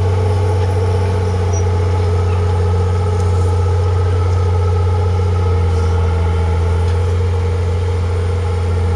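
Heavy diesel engine of earthmoving machinery running steadily, a loud deep drone that holds even.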